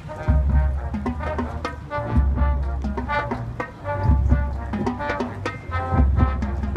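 High school marching band playing: short rhythmic brass notes over deep bass notes that land about every two seconds.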